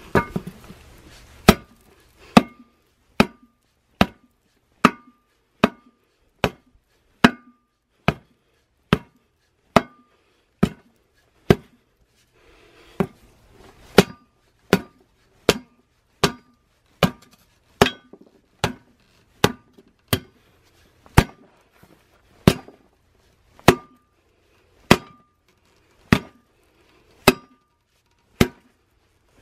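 Hammer blows on a steel tyre lever, repeated steadily about once a second, each a sharp clank with a short metallic ring. The lever is being driven between the bead of an old, age-hardened tyre and a steel wheel rim to pry the tyre off.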